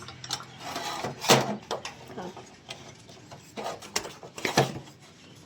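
Hand tools and metal parts clinking and knocking in a repair workshop: a handful of sharp metallic knocks and clicks, the loudest about a second in and again near four and a half seconds.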